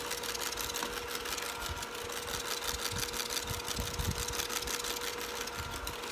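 Electric hand mixer running steadily, its beaters whipping sweetened egg whites in a bowl: a constant motor whine with a fast fine rattle, and a few low bumps around the middle.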